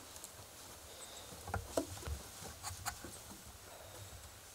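Boots knocking on the rungs of a wooden hunting high-seat ladder as someone climbs down: a handful of short knocks and dull thumps, most between about one and a half and three seconds in.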